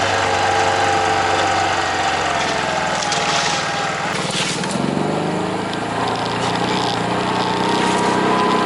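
Small off-road vehicle engine running while driving along a dirt two-track. Its note dips and rises with the throttle, changing about five seconds in and climbing near the end.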